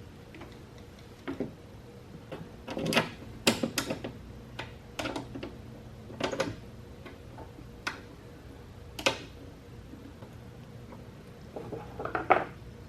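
Irregular sharp clicks and knocks, about a dozen, unevenly spaced, with a faint steady hum beneath.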